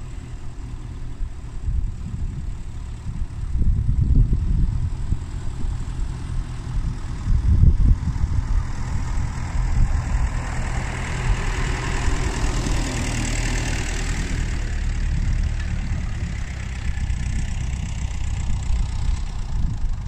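1954 Ferguson TEF20 tractor's four-cylinder diesel engine running under load as it pulls a single-furrow plough past. The sound swells as the tractor comes close about halfway through, then eases as it moves away.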